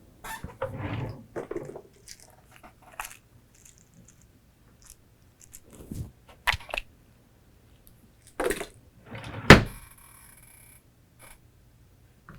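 Scattered knocks, rustles and thuds in a small room, the loudest a sharp thump about nine and a half seconds in, followed by a short rattle.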